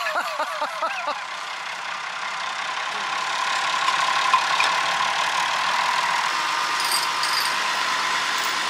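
Massey Ferguson tractor's diesel engine working under load as it drags a conifer bush out by the roots, growing louder over the first few seconds and then holding a steady note. Voices are heard briefly at the start.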